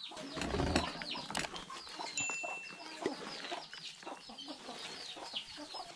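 Chickens clucking in the background, with the crackle and rustle of hands tossing salted sliced cabbage in a plastic basin.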